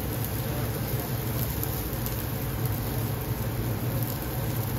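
Commercial gas grill with charcoal cooking chicken: a steady rushing noise with a low hum.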